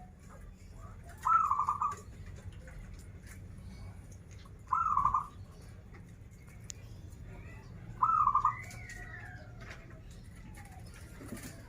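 Zebra dove (perkutut) cooing: three short, rapidly pulsed phrases, each about half a second long, spaced roughly three and a half seconds apart.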